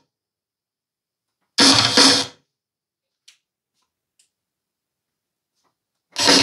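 Rock music with drums and guitar played through Apocalypse Sylvester M61 SE-series car-audio speakers on a test stand. It cuts off abruptly, plays again for under a second, then stops. After a near-silent gap with a couple of faint clicks it starts again near the end.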